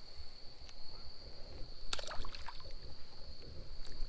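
A brief cluster of small water splashes about two seconds in, over a steady high-pitched insect trill.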